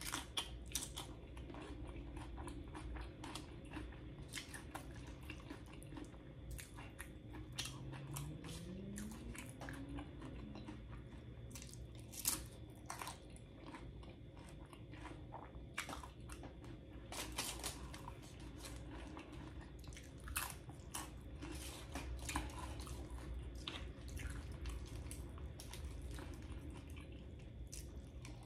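Close-miked eating of loaded tortilla-chip nachos: irregular sharp crunches of chips being bitten, with chewing between them. A brief rising tone comes about eight seconds in.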